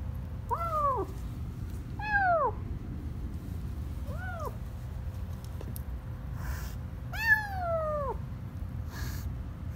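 A frightened calico kitten meowing four times, each call rising briefly then falling in pitch, the last one longer and the loudest.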